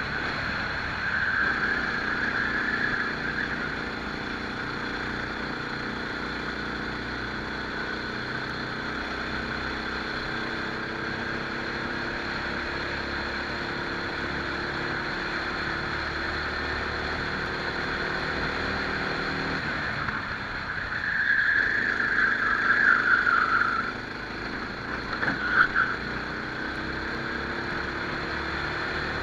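Rental kart engine heard onboard, its pitch rising and falling as the driver accelerates and lifts through the corners. High squeals cut in briefly near the start and twice in the last third.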